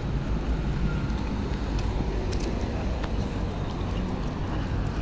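Steady rumble of city street traffic, with a few faint clicks about two to three seconds in.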